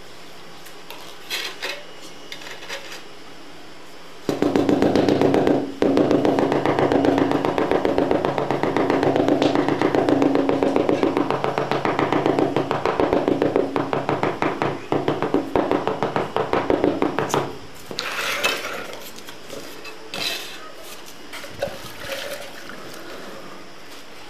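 Rubber mallet tapping rapidly on a large floor tile to bed it into the cement mortar: a dense run of dull knocks that starts about four seconds in and stops after about thirteen seconds, followed by a few scattered knocks and scrapes.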